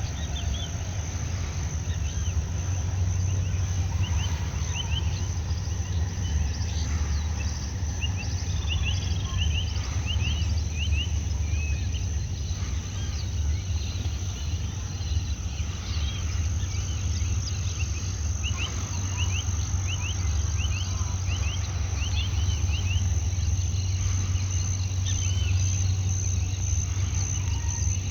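Tropical outdoor ambience: a steady high-pitched insect drone with many short bird chirps and calls throughout, over a constant low rumble.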